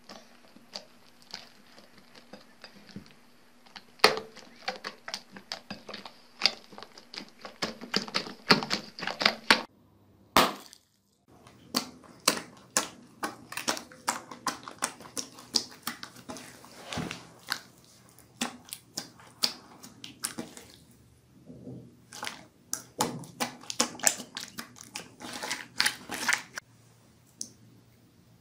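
Hands pressing and squishing slime, making quick runs of wet clicks and pops. There is a short break about ten seconds in, then more squishing and popping.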